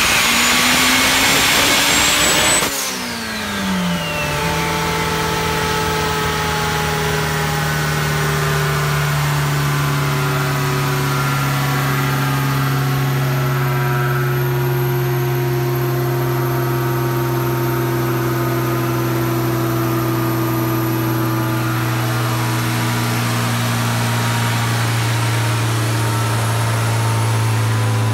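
Compound-turbocharged Honda S2000 four-cylinder engine ending a dyno pull: revs and a high turbo whine climb, then it lets off about two and a half seconds in and the whine falls away as the revs drop. The engine then idles steadily.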